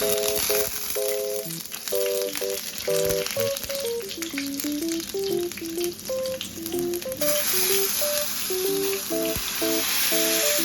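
Food frying in a pan: a steady sizzle that grows louder about seven seconds in, under soft background music.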